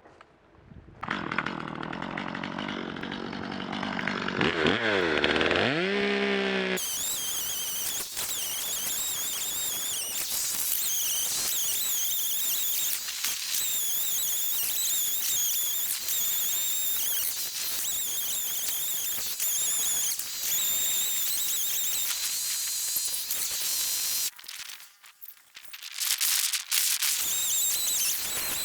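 Two-stroke chainsaw revving, then running at full throttle while cutting a pine log, its high whine wavering in pitch as the chain loads up in the wood. It drops away briefly a few seconds before the end, then picks up again.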